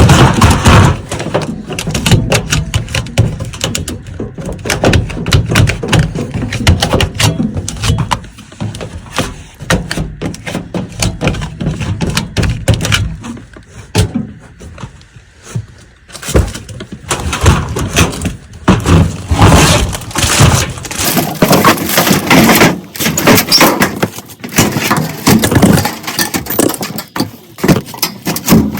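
Sealing tape being pressed and smoothed onto sheet-metal ductwork with a squeegee: rapid scraping, crinkling and knocks against the metal, quieter for a few seconds in the middle.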